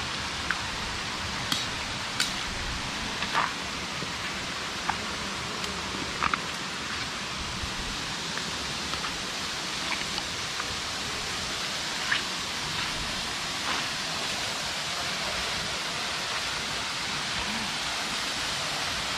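Steady rush of a waterfall's falling water, with a few faint short clicks scattered through it.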